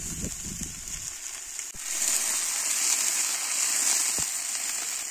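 Water pouring from a bucket into a hot cast-iron kazan, splashing for about the first second. Then a steady loud sizzling hiss as the water boils up against the hot fried food, sending up steam.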